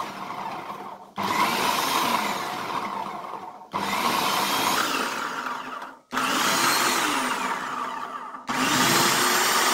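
Electric food processor pulsed on and off in bursts of about two and a half seconds, chopping a wet mix of coriander, mint, green chillies and garlic. Each pulse starts abruptly, rises in pitch as the motor spins up and falls as it winds down.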